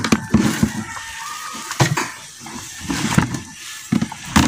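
Handling noise from a wire-mesh mouse cage and its fittings: scattered clicks and knocks, with the loudest knock near the end.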